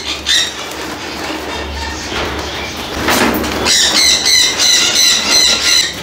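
Parrot squawking in a rapid run of repeated harsh calls during the second half, after a brief burst of noise about three seconds in.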